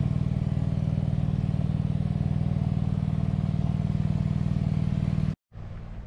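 Pump running with a loud, steady low drone and a rapid even pulsing, cutting off suddenly about five seconds in.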